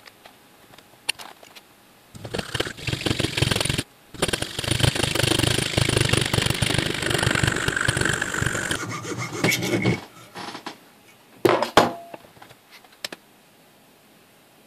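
Hacksaw cutting a narrow slit into a jaw harp's flat plate clamped in a bench vise, the slit that frees the harp's tongue. The sawing runs for about eight seconds with a short pause near the start, then a few sharp knocks as the saw and workpiece are handled.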